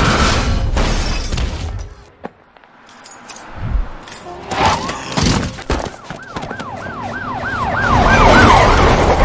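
Police siren yelping: a fast rise-and-fall repeated about three times a second, starting about six seconds in and growing louder. Before it come a few sharp knocks.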